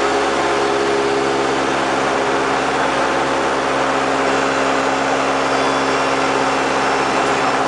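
Single-engine light aircraft's piston engine and propeller running at a steady pitch, heard inside the cockpit over an even hiss of airflow.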